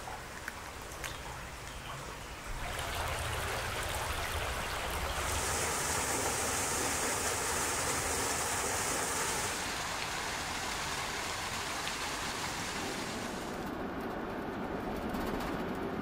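Small waterfall spilling into a shallow rock pool: a steady rush of water that swells a few seconds in and is brightest and hissiest in the middle. Near the end it gives way to a duller, steady rumble of road noise from a moving vehicle.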